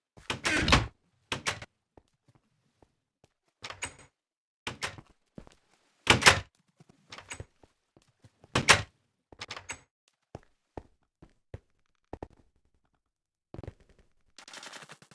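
Irregular series of knocks and thuds, a dozen or so, three of them much louder than the rest; a rustling noise starts near the end.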